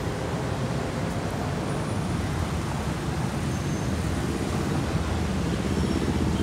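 Steady city road traffic: cars and motorcycles passing, a continuous rumble of engines and tyres that swells a little near the end as a car drives close.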